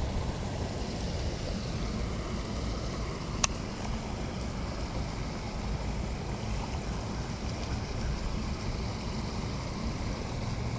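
Wind buffeting the microphone: a steady low rumble, with one sharp click about three and a half seconds in.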